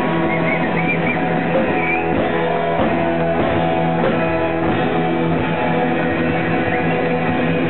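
Live rock'n'roll band playing loud: electric guitar holding a ringing chord over drums and cymbal crashes, with an upright double bass on stage.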